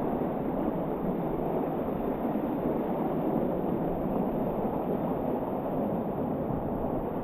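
Waterfall water rushing steadily, a loud and even noise with no break.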